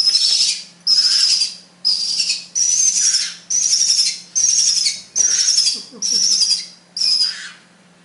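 Hand-fed Bali myna nestlings begging for food: a harsh, rasping call repeated about once a second, each call well under a second long. It is the chicks' hunger call during feeding, which the keeper answers with another mouthful.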